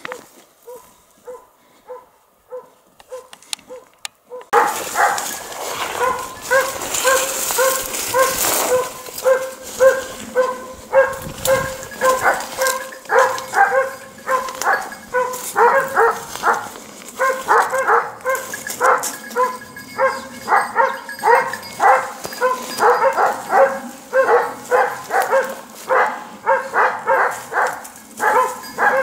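A pack of hunting dogs baying, many rapid overlapping barks. For the first four seconds or so it is faint and distant, then it turns loud and close and keeps on without a break.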